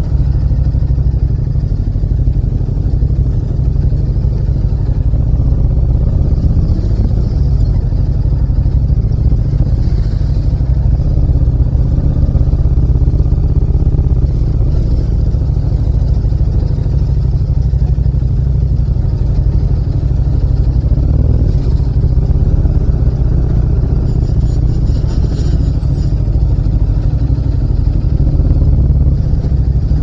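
Yamaha MT-07's 689 cc parallel-twin running at low revs through an aftermarket muffler with a nearly 4-inch outlet, giving a steady deep rumble.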